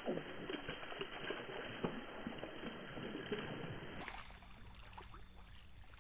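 Hooked fish thrashing and splashing at the water's surface, in irregular splashes that die down about four seconds in.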